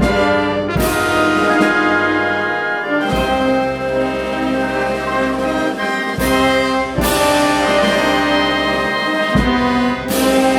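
Brass band playing a slow Holy Week processional march: sustained brass chords with cymbal crashes every few seconds.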